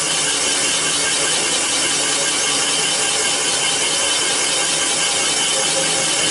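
Comec CNC cylinder boring machine cutting an engine block's cylinder bore, its spindle turning at about 300 rpm: a steady grinding cutting noise with a faint high ringing tone from the boring tool in the iron.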